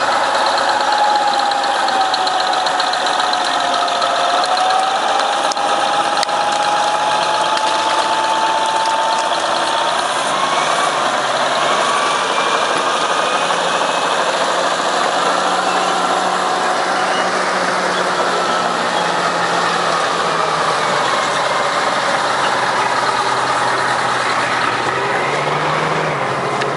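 Heavy construction vehicle's engine running steadily, with a whine that dips and slowly rises in pitch.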